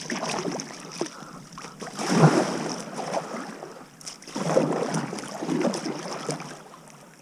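Kayak paddle strokes splashing in river water, about four strokes a second or two apart, switching sides. Faint wind on the microphone between strokes.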